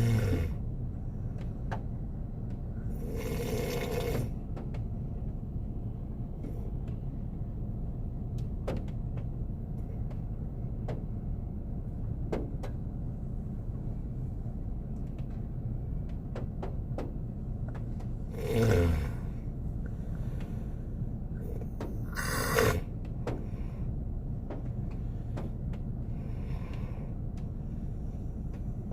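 A man snoring while asleep in a car, with a few loud, irregularly spaced snores, one of them sliding down in pitch. Under them runs a steady low rumble, with scattered light ticks of rain hitting the car.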